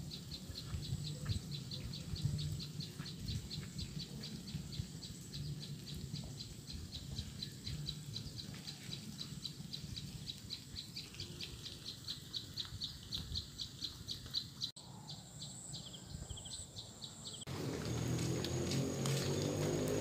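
An animal's short high chirp repeats steadily, several times a second, over a low outdoor rumble. Near the end this gives way to music.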